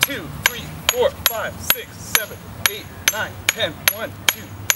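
A metal ball bounced again and again off the steel head of a 16-pound sledgehammer: sharp metallic clinks about two a second, each with a brief high ring.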